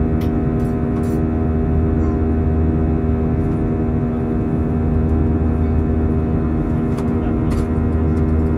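Airbus A320 engine and airflow noise heard from the cabin: a steady drone of several held hum tones over a low rumble, with a few faint clicks.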